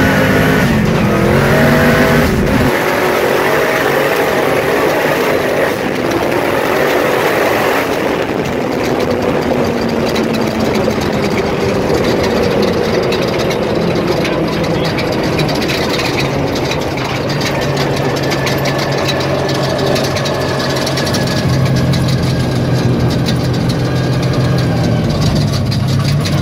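Engine of an off-road side-by-side running hard at speed, its pitch rising and falling in the first couple of seconds, then holding fairly steady, under a constant rush of wind and rattling from the open cab.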